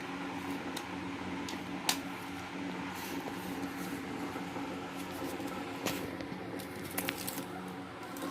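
Clicks from the control knobs of an electric countertop oven being turned as it is switched on and its timer set, over a steady low hum. The sharpest click comes about two seconds in, with a few more near the end.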